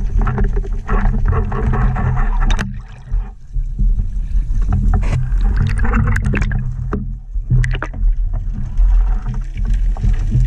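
Water sloshing and rushing against an underwater camera housing on a speargun, with a steady low rumble and a few sharp clicks; the water noise churns more as the camera breaks the surface about halfway through and goes back under.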